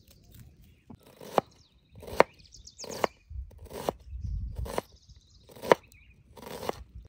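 Meat cleaver chopping a red onion on a wooden cutting board. There are about seven separate chops, a little under a second apart, each a sharp knock of the blade on the wood.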